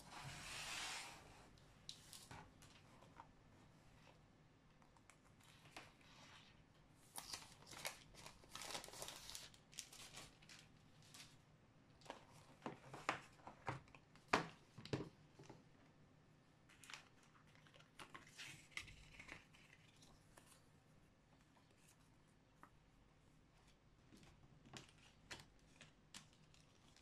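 Faint, scattered rustling, scraping and light knocks of a cardboard box of watercolour paint tubes being handled and opened by hand.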